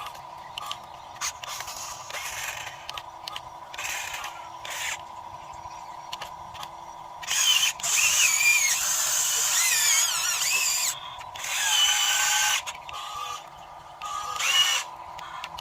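Electric motors and hydraulic pump of a remote-controlled model Cat excavator whirring as it works, a steady whine underneath with louder, wavering high-pitched bursts of a second or two as the machine moves.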